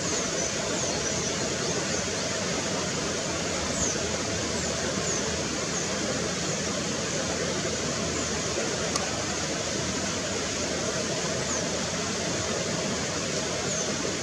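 Steady, even rushing outdoor noise, with faint short high chirps now and then.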